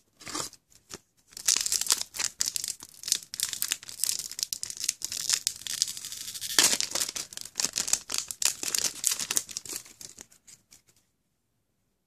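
A foil trading-card booster pack being torn open by hand, its wrapper crinkling and tearing. The sound starts about a second in, is loudest near the middle, and stops about a second before the end.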